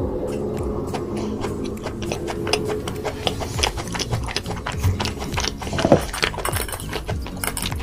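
Close-miked chewing and crunching of food, a rapid, uneven run of crackles and clicks.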